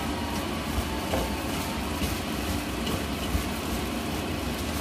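A hand in a disposable plastic glove tossing seasoned steamed eggplant in a stainless steel bowl: steady rustling and squishing, over a low background hum.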